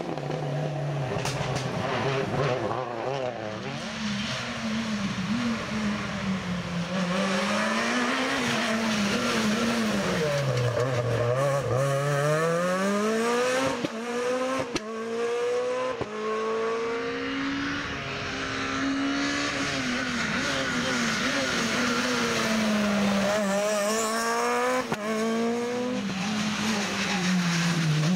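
Rally cars passing one after another at full speed, engines revving hard, pitch climbing and falling with each gear change and lift-off.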